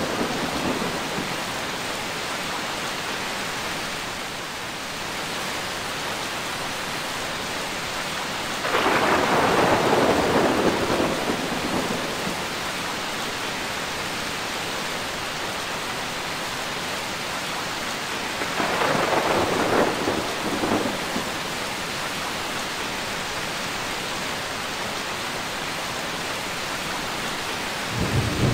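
Steady rain falling throughout a thunderstorm, with rolls of thunder rumbling over it: the loudest comes about nine seconds in and lasts a few seconds, a weaker one about nineteen seconds in, and another begins right at the end.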